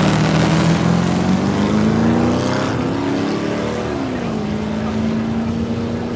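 Drag car engine under hard acceleration, its pitch climbing steadily, then dropping at a gear change about four seconds in and holding steady.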